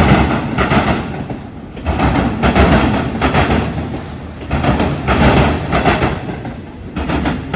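Freight train cars rolling past close by, steel wheels clattering on the rails, the sound swelling and easing every second or two.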